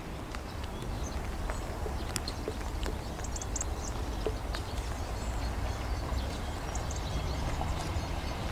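Quiet outdoor background: a steady low rumble with scattered faint ticks, and a few brief high chirps about three and a half seconds in.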